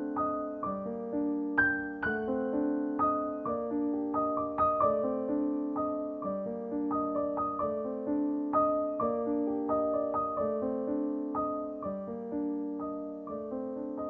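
Background piano music: a continuous melody of struck notes that ring and fade, several sounding together.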